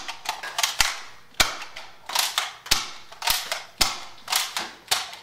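Nerf Spectre REV-5 spring-powered dart revolver being cocked and fired over and over: a string of sharp snaps and clacks, about two a second.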